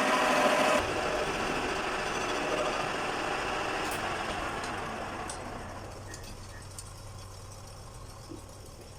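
Lathe running, then switched off just under a second in and coasting down, its sound fading away over the next several seconds.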